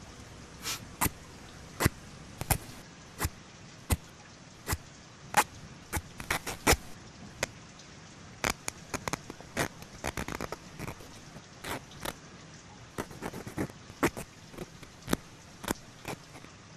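Irregular sharp clicks and taps, some single and some in quick clusters, over a faint steady hiss.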